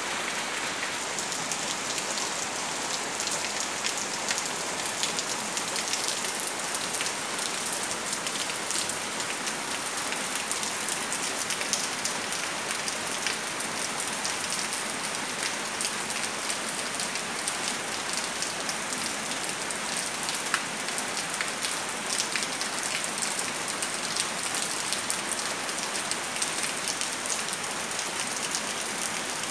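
Steady rain falling on potted plants and wet ground: a constant hiss with many small, sharp drop hits.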